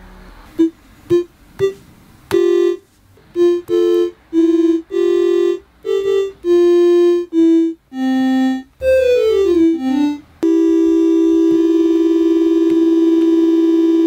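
Electronic keyboard tones triggered by touching copper-tape pads wired to an Arduino: a string of separate single notes, then a quick descending run of notes, then one note held steadily from about ten and a half seconds in.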